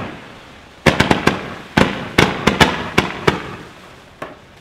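Celtic Fireworks 128-shot Roman candle bundle firing: about a dozen sharp shots in quick volleys, each trailing off briefly, then one faint last pop near the end.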